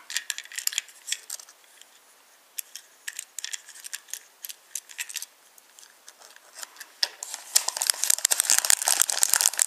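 Scattered small clicks and taps of a tiny plastic toy train car being handled, then, from about seven and a half seconds in, a clear plastic bag crinkling steadily as a hand digs into it.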